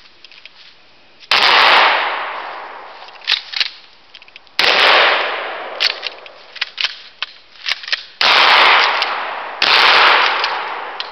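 Four blasts from a Stevens Model 620 12-gauge pump-action shotgun over about eight seconds, the last two close together, each echoing and fading slowly. Short sharp clacks come between the shots as the pump slide is worked.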